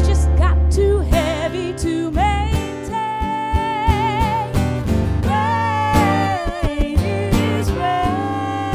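Two women's voices singing over an acoustic guitar, with several long held notes sung with vibrato.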